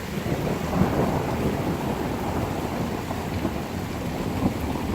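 Thunder rolling as a low rumble that swells right at the start and carries on over steady rain.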